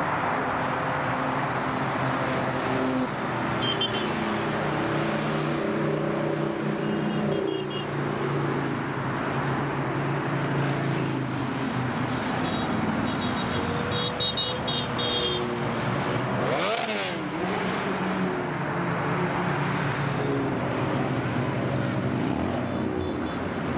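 Motorcycle engine running steadily at road speed over a constant rushing noise, with a brief rise and fall in pitch about two-thirds of the way through.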